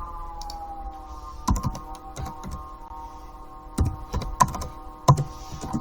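Computer keyboard and mouse clicks, about eight separate sharp clicks scattered irregularly, over a steady background drone of several held tones.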